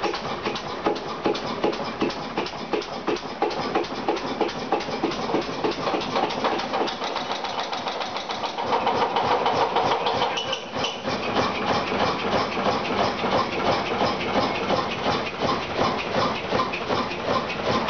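1948 Duvant RF horizontal single-cylinder stationary engine running with a steady, even beat. It runs louder for a couple of seconds near the middle.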